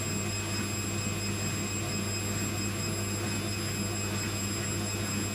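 Indesit 860B washing machine drum spinning at a steady speed, a constant hum. The spin is slow, short of 400 rpm: about 300 or less by the watchers' reckoning.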